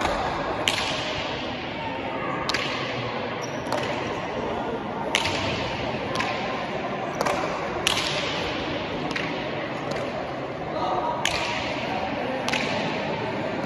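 Pelota ball being struck in a hand-pelota rally: sharp cracks of bare-hand hits and of the ball striking the front wall and floor, about one a second, each ringing on in the echoing frontón hall.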